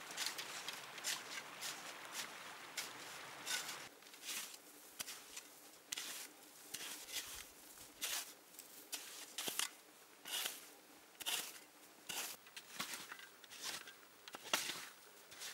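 A small hand shovel scooping and scraping snow in quick repeated strokes, about one to two a second. A steady hiss underneath drops away about four seconds in.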